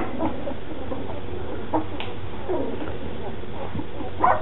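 Two-week-old standard poodle puppies whimpering and squeaking faintly now and then, a few short calls falling in pitch, over a steady background hiss.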